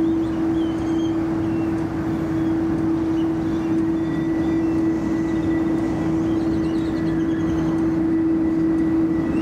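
Jet engines of a taxiing Airbus A330-300, its General Electric CF6-80E1 turbofans at low thrust, give a steady drone with a constant hum. A faint high whine joins about four seconds in. Small birds chirp now and then.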